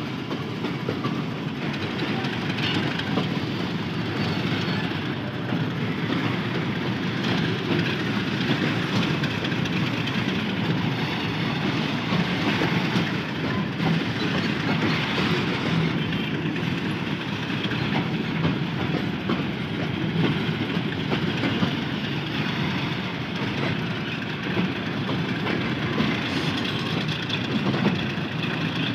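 Freight train of oil tank wagons rolling past, wheels clattering steadily over the rail joints.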